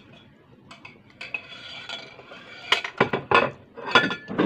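Light clinks against a ceramic bowl as curry chicken is picked out by hand. Then, from about two and a half seconds in, loud close-up mouth sounds of eating: sucking and smacking on a piece of chicken.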